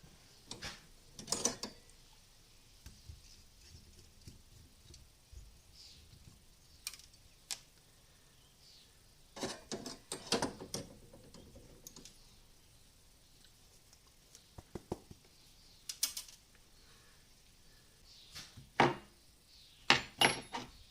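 Small metal parts and tools clicking and clattering as a motorcycle carburetor is taken apart by hand: scattered taps and clinks, with a few louder clusters of rattling.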